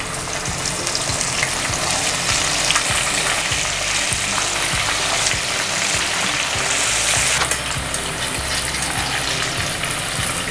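Cornstarch-coated oyster mushrooms deep-frying in hot oil: a steady sizzle with many small crackles and pops.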